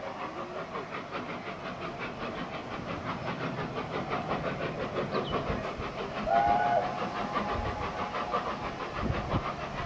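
Steam locomotive 'Union of South Africa', a three-cylinder LNER A4 Pacific, working past with its train: a fast, even beat of exhaust and wheel noise. A short whistle note sounds about six seconds in, and the low rumble grows toward the end.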